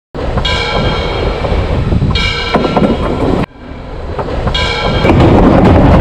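Train horn sounding in three blasts, the first the longest, then the loud rumble and clatter of a train passing directly overhead.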